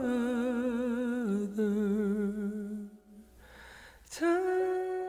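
The close of a slow song: a solo voice sings long held notes with vibrato, dropping in pitch about a second in. There is a short, nearly silent break around three seconds in, then a click and one more held note near the end.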